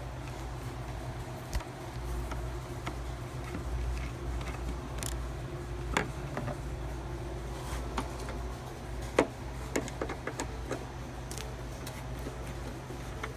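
Irregular small clicks and taps of hands working a headlight bulb and its plastic housing during a bulb change, over a steady low hum.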